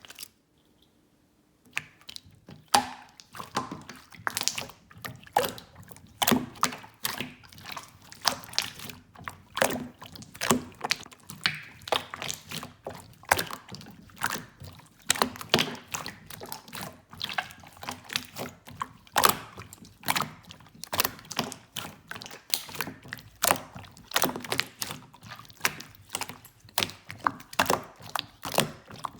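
Clear slime being squeezed and worked by hand, giving irregular sticky clicks and wet pops, several a second, starting about two seconds in.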